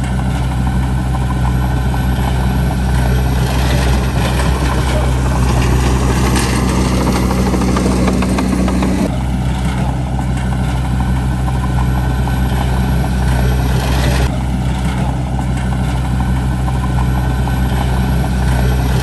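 Crawler bulldozer's diesel engine running steadily while it pushes soil, the note swelling briefly from about seven to nine seconds in.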